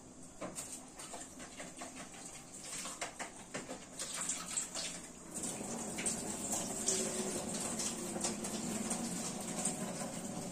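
Liquid bubbling and splashing in a steel pot on a gas stove, with scattered clicks and taps; it gets denser and louder about five seconds in.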